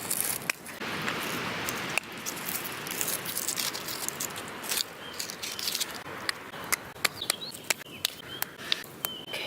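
Hand pruners snipping through Veronica stems again and again, sharp clicks over a steady rustle of foliage. Birds chirp briefly in the background in the second half.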